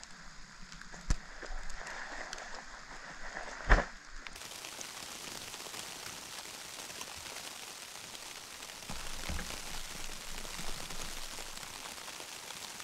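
Heavy wet snow falling through a conifer forest, a steady fine patter much like light rain. Before it, about four seconds in, a few snowshoe steps in snow and one sharp knock.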